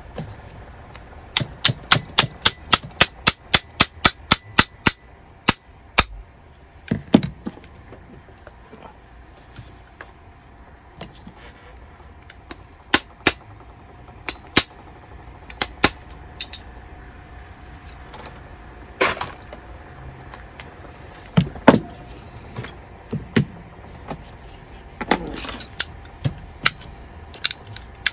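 Sharp clicks from the stripped frame and parts of a Krytac Maxim 9 gas-blowback airsoft pistol being worked by hand: a quick run of about fifteen clicks, some four a second, then scattered single clicks and knocks as the parts are handled and fitted together.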